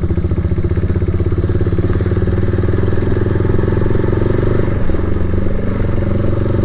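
Motorcycle engine running steadily while being ridden at a slow, even pace, heard from on the bike, with a fast even beat of exhaust pulses.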